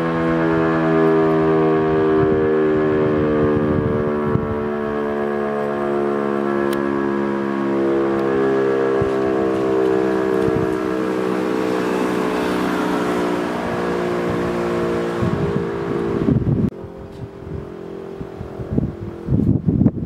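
E57 electromechanical civil-defence siren sounding a steady chord of several tones, its pitch sinking slowly as it winds down. Its rain canopy is rusted through with a hole. The tone cuts off suddenly about three-quarters of the way through, leaving wind gusting on the microphone.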